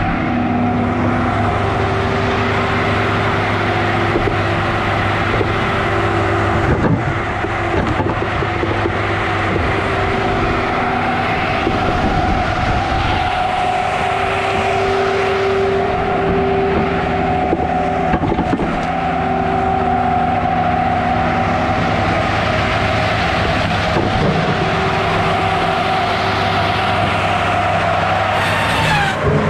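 An engine running steadily at a constant speed, with a sharp knock about seven seconds in.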